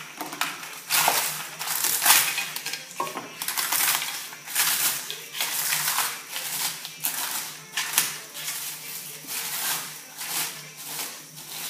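Eggshells being crushed by hand in a stainless steel frying pan: a run of crackling crunches, one or two a second, as the shells break up. The shells are still sticky with their inner membranes.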